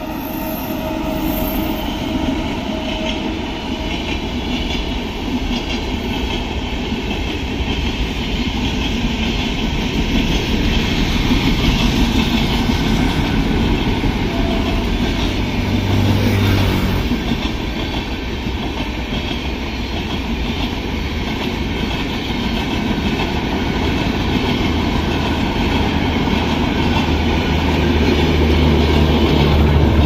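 Passenger trains running past close by: the steady rolling rumble of coaches on the track, growing louder toward the end.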